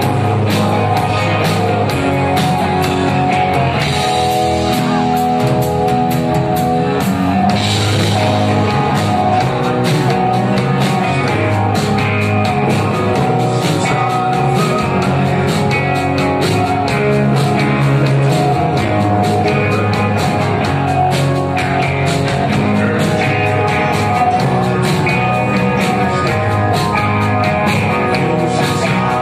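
Live rock band playing loudly: distorted electric guitars, bass and drum kit, with a male lead singer singing into a microphone.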